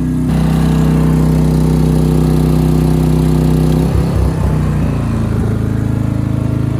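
maXpeedingrods MXR3500W portable inverter generator running steadily under a 1500-watt load. About four seconds in the load comes off and the engine speed drops, settling to a lower, steadier idle.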